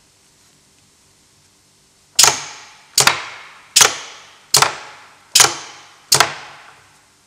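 Ixtur MAP-40 pneumatic permanent magnet switched on and off six times in quick succession by its hand air valve: six sharp clacks about 0.8 s apart, each followed by a short fading hiss of air. The rapid cycling shows a full magnet cycle in under a second.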